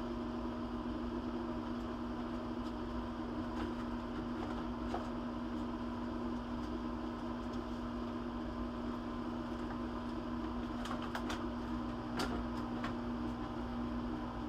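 Steady hum of a running machine with one strong, even tone, with a few faint clicks and knocks near the end.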